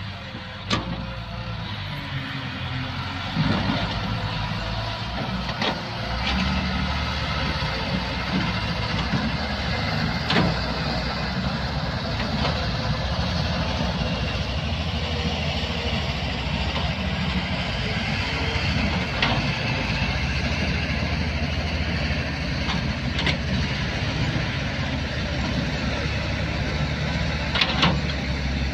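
Diesel engine of a Daewoo Solar 130W wheeled excavator running as it digs, growing louder and heavier about six seconds in, with occasional sharp knocks every few seconds.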